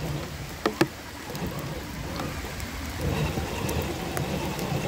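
Electric motor and gear drive of radio-controlled scale crawlers crawling over a leafy forest trail, a low rough drone with tyres crunching over debris. Two sharp knocks a little under a second in; the drive noise drops back soon after and picks up again about three seconds in.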